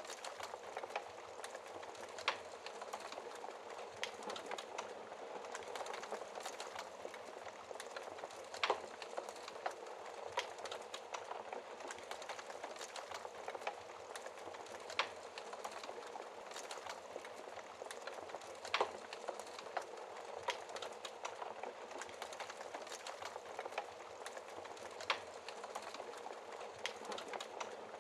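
Wood fire in a fireplace crackling steadily, with a few louder sharp pops spread through it, about one every few seconds.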